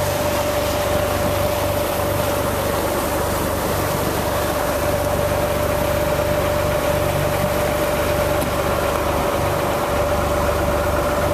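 Fishing boat's diesel engine running steadily under way, a low hum with a steady whining tone over it.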